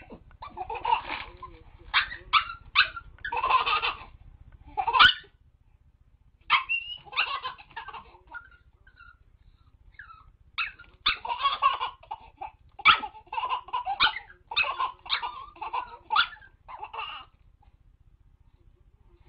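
A small dog yipping and barking while a baby laughs, in repeated bursts with short quiet pauses between them.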